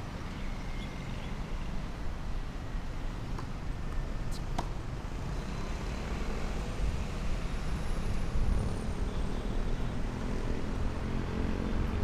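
Steady low outdoor rumble, with two short sharp knocks close together about four and a half seconds in.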